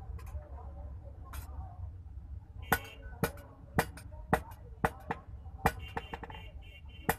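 Hand hammer striking a steel chopper-knife blade on a small anvil: a few light taps, then from nearly three seconds in a steady run of sharp metallic clinks, about two a second, with a lighter flurry near the end.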